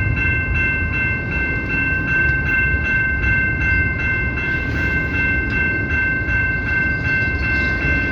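Freight train rolling past: a heavy low rumble with wheels clicking over rail joints about four times a second, and a steady high-pitched whine that holds unchanged throughout.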